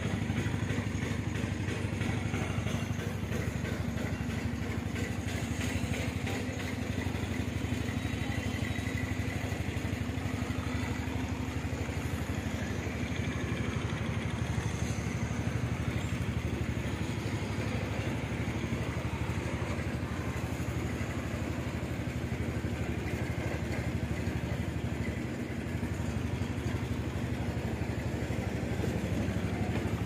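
An engine running steadily with a continuous low hum.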